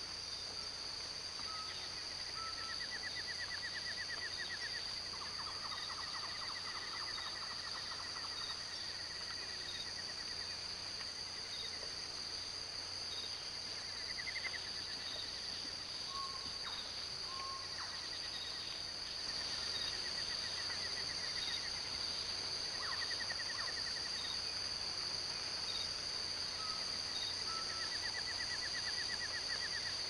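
Tropical forest ambience: a steady high insect drone with repeated short trills and scattered chirps from forest animals, getting a little louder about two-thirds of the way through.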